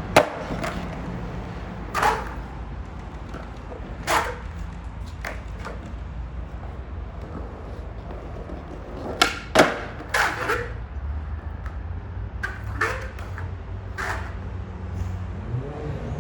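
Skateboard being ridden and tricked: a steady low rumble of the wheels rolling, broken by a dozen or so sharp clacks of the board's tail popping and the board landing, several in close pairs.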